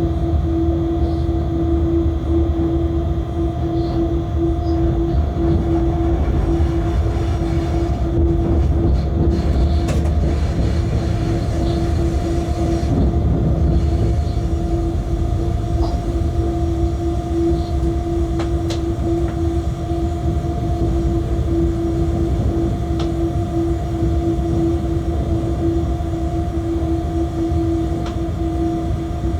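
Freight locomotive running, heard from inside the driver's cab: a steady low rumble with a constant hum and a few faint clicks.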